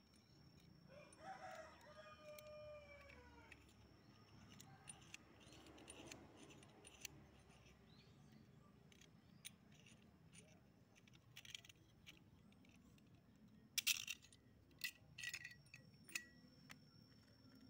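Small steel parts (a square tube, threaded rods and a flat bar) clicking and clinking as they are handled and fitted together, in scattered light clicks with the loudest cluster near the end. About a second in, a bird calls once in the background, one long call that falls in pitch.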